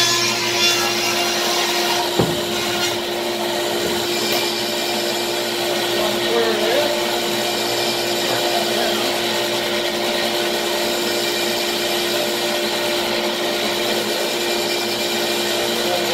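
Table saw running steadily with a constant motor hum, its blade ripping through a rough cedar slab. A single sharp knock about two seconds in.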